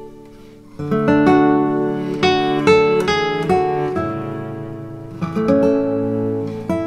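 Acoustic guitar music: strummed and plucked chords, with a brief lull just before the strumming picks up about a second in.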